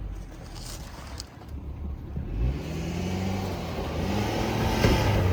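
Vehicle engine pulling away: low running at first, then revving up about two seconds in with a rising pitch, and running on more strongly as it drives through the snow.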